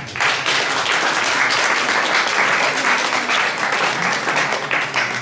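Audience applauding, a steady clatter of many hands clapping that dies down at the end.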